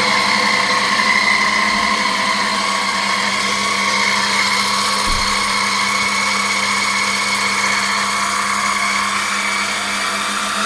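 Axminster Sieg C2a mini lathe running steadily on a test run after repair with a new drive gear and belt, its casings still off. The motor and gear train give a steady hum with a high whine over it.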